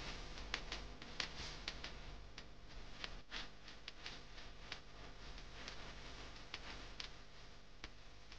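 Irregular sharp clicks and crackles, about two a second, over a steady hiss and a low hum.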